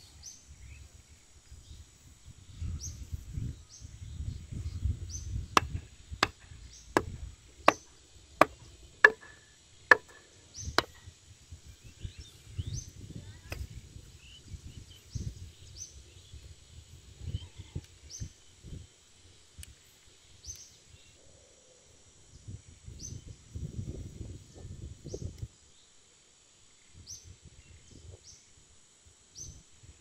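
A run of about eight sharp knocks, roughly one every 0.7 seconds, a few seconds in. Around them is a low, uneven rumble and recurring short high chirps.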